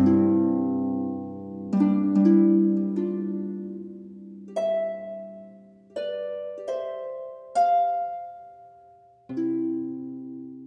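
Gentle background music of slow plucked notes and chords, struck every second or two, each ringing out and fading away.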